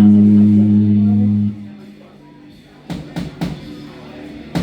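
A loud held low note from amplified bass and guitar rings out and is cut off about a second and a half in; a few sharp drum-kit hits follow about three seconds in and again near the end.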